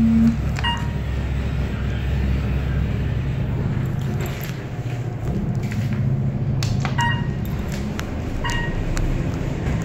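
Elevator car running with a steady low hum and rumble. Three short electronic beeps sound over it, one about a second in and two near the end.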